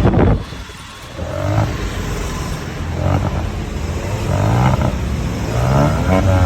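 Car engine revving several times, each rev rising in pitch, with a sharp loud burst at the very start.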